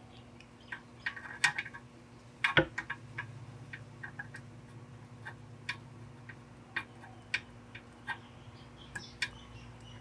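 Scattered sharp clicks and small taps from soldering work on a circuit board, with the soldering iron and tools touching the board and pads. The loudest clicks fall a second or two in, over a steady low hum.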